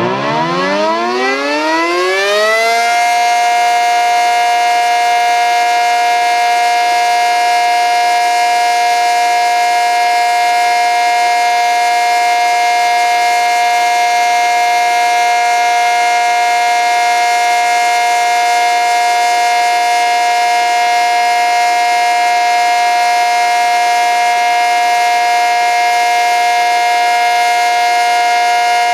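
ACA Cyclone 125 omnidirectional outdoor warning siren winding up, its pitch rising for about the first three seconds. It then holds a steady, very loud chord of several tones: the steady alert signal of a siren test.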